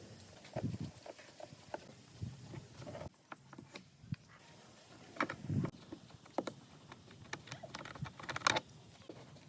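Irregular light knocks and clicks, the loudest a few about five and a half seconds and eight and a half seconds in.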